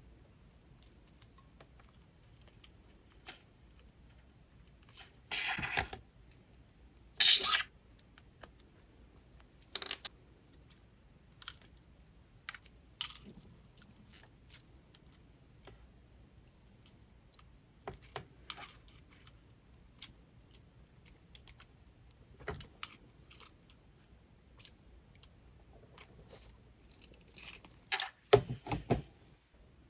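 Small metal clicks and scrapes of jewelry pliers working copper wire into loops and links, scattered irregularly. Two longer scraping bursts come about five and seven seconds in, and a louder cluster of knocks near the end.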